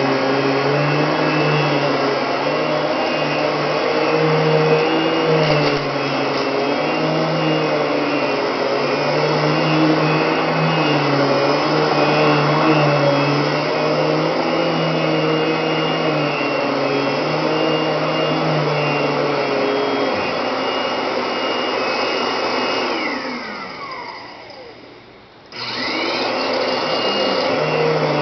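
Panasonic MC6640 commercial upright vacuum cleaner running with a steady whir whose pitch wavers slightly. About 22 seconds in, its motor winds down over about three seconds. It then abruptly comes back up to speed and runs steadily again.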